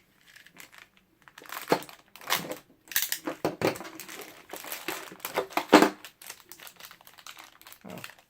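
Plastic toy packaging crinkling and rustling in irregular bursts as it is handled and opened, busiest in the first six seconds and then only now and then.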